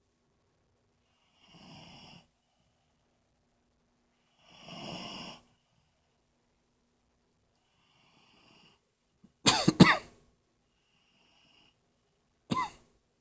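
A man passed out drunk, snoring: two drawn-out snoring breaths a few seconds apart, then much louder, abrupt snorts, a double one about two-thirds of the way through and a single one near the end.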